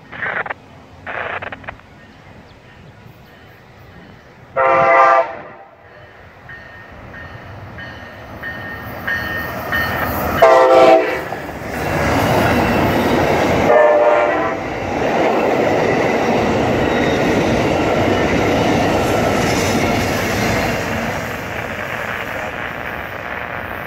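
Amtrak passenger train led by a Siemens Charger locomotive sounding its horn, three short blasts several seconds apart. The coaches then roll past with a steady rumble and clickety-clack of wheels on the rail joints, easing off near the end.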